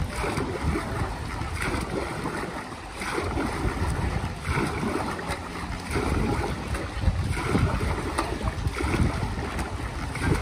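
Dragon boat paddle blade driven hard through still pool water in steady repeated strokes, each catch and pull churning and splashing the water in a regular surge.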